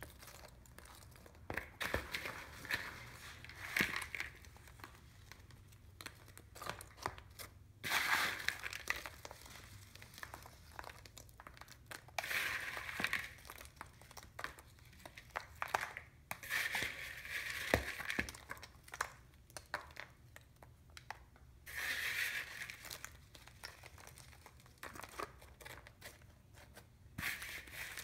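Plastic bag crinkling in short bouts every few seconds while crushed Oreo cookie pieces are shaken out of it onto a layer of ice cream, with small clicks and taps in between.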